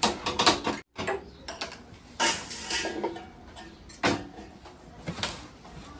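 Stainless steel pots and a plate lid clinking and knocking on a gas stove during cooking. A cluster of clinks comes near the start, then single knocks about two, four and five seconds in.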